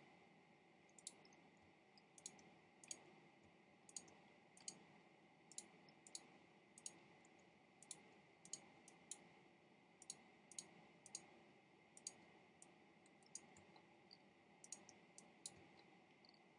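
Computer mouse clicking: about twenty single, sharp clicks at irregular intervals, faint, over a thin steady background tone.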